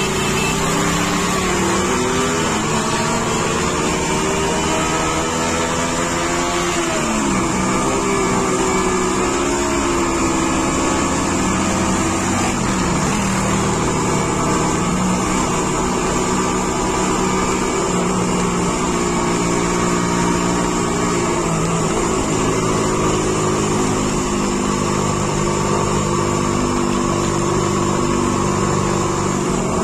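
A motorcycle engine running under way, its pitch climbing and then dropping back several times as it accelerates and changes gear, over steady wind and road noise.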